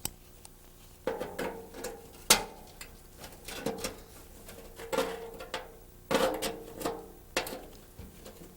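Steel fender edge being folded back over its reinforcing wire: a series of about seven or eight metallic knocks, irregularly spaced about a second apart, each ringing briefly.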